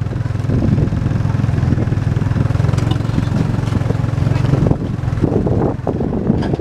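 Small motorbike engine running steadily close by; the drone drops away and turns rougher about five seconds in.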